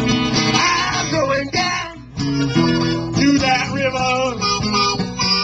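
Blues harmonica played into a microphone, with notes bending up and down, over acoustic guitar accompaniment.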